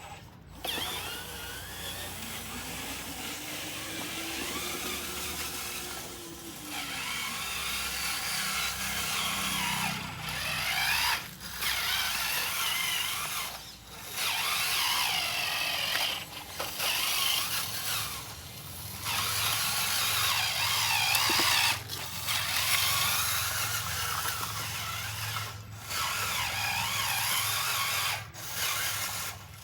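Small electric motors and gearing of radio-controlled construction models whining, the pitch rising and falling as they speed up and slow down, with short breaks every few seconds.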